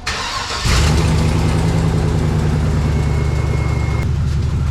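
Pickup truck engine coming on suddenly about a second in, then running at a steady idle.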